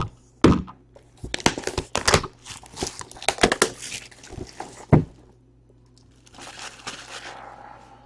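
Wrapping being torn and crinkled off a sealed box of trading cards: a run of sharp crackles, a heavier knock about five seconds in, then softer rustling.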